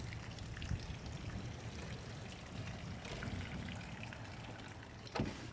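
Light rain and rainwater dripping and trickling after a thunderstorm, a steady soft wet hiss with scattered drips. A short thump near the end.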